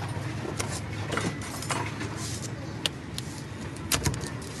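Street food stall sounds: a steady low hum, with scattered sharp clicks and taps of metal utensils. Near the end comes a pair of clicks as a long knife presses down through a pizza onto its foil plate.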